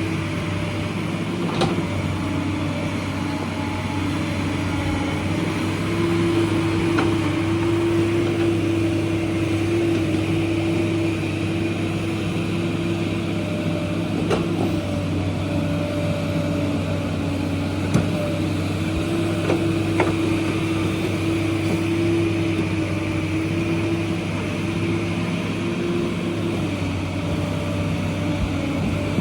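JCB excavator's diesel engine running steadily under work, its pitch shifting slightly up and down, with a few sharp clanks at intervals.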